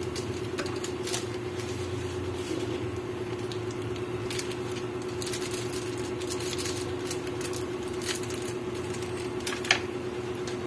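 Light crinkles and ticks of a seasoning sachet being handled as its granules are sprinkled over raw meat in a pan, over a steady low hum.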